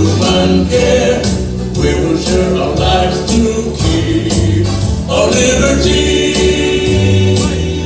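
A hymn sung by a group of voices over instrumental music with a steady beat.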